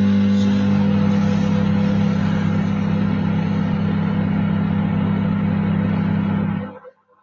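Microwave oven running on medium power: a steady, loud electrical hum with a fan's whoosh, which cuts off abruptly near the end.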